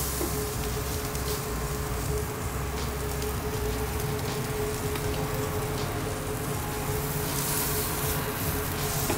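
Tomahawk steak sizzling and crackling on the hot grate of a kamado-style barbecue as its fat crisps, with a steady hum underneath.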